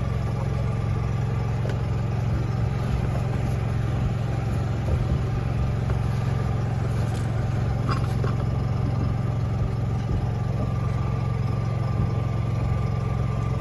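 Steady, engine-like low drone of the boat's onboard machinery running with the air conditioning on. A faint click comes about eight seconds in, followed by a thin steady whine.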